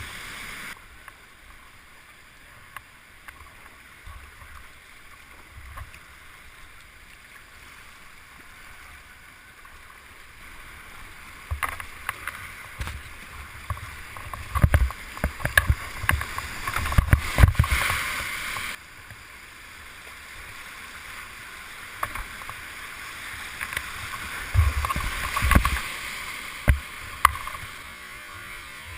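Rushing whitewater around a kayak running rapids, with bursts of heavy splashing and low thumps of water hitting the boat, twice growing loud for several seconds.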